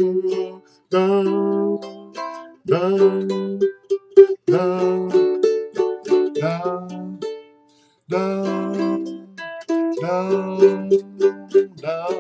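Ukulele playing an instrumental break in the song: phrases of chords and melody notes, broken by short pauses.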